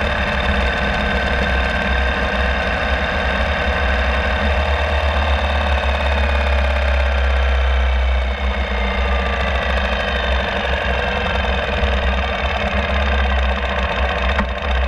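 Ural Classic sidecar motorcycle's boxer twin engine running on the move. About eight seconds in, the engine note eases and falls as the bike slows.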